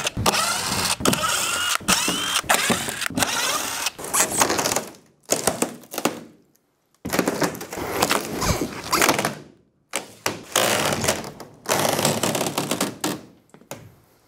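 Cordless drill backing screws out of a wooden shipping crate, its motor whining in short runs, among knocks and clatter of the wooden crate panels. Later a large crate wall is tipped down onto the floor with a thunk.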